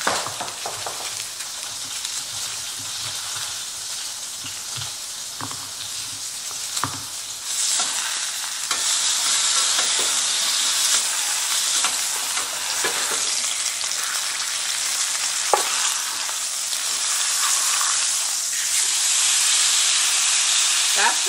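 Chuck roast searing in a hot cast iron skillet: a steady sizzle of meat and fat, the hard sear that shows the meat was patted dry. For the first several seconds the sizzle is quieter, with a few soft knocks of garlic cloves being handled on a plastic cutting board, then it turns louder and fuller.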